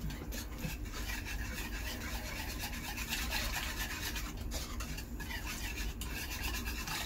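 Wire whisk scraping rapidly and steadily around a pot, beating milk into a thick béchamel (white sauce) roux.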